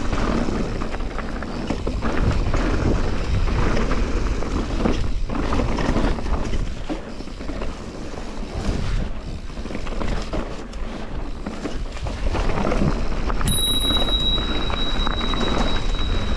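Mountain bike riding down a dirt trail: tyres rolling over dirt and rock with occasional knocks from the bike, and wind rushing over the microphone. About three seconds from the end a high, steady squeal starts and holds to the end.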